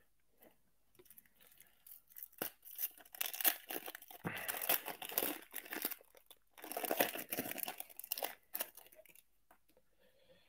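A 1998 Topps Chrome football foil pack wrapper being torn open and crinkled by hand. Most of it comes in two louder stretches of tearing and crackling, then it goes quiet near the end.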